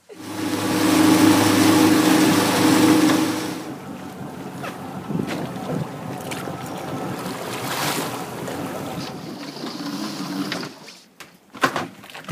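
A boat motor runs with a steady hum, loud for the first three and a half seconds, then drops back. After that come splashing water and knocks of gear as a crab-trap buoy is hooked with a pole and the trap is hauled aboard.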